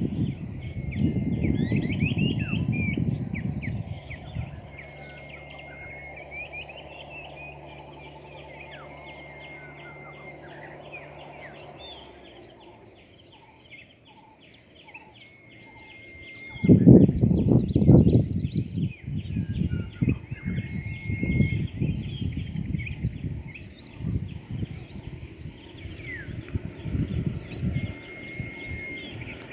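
Wild birds calling throughout, with many short chirps and a repeated held whistled note, over bursts of low rumbling noise at the start and again from about halfway through, the loudest part. A steady low hum runs for several seconds in the first half.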